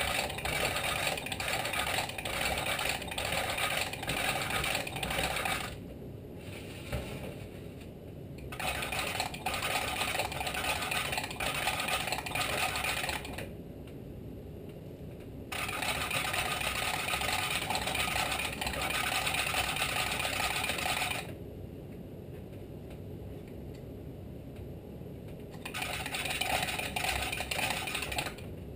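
Valve being lapped into its seat in a Tecumseh HSK70 cylinder block with valve grinding compound, turned back and forth by a hand lapping tool: a gritty scraping with faint clicks about twice a second. It comes in four spells of several seconds, with short pauses between.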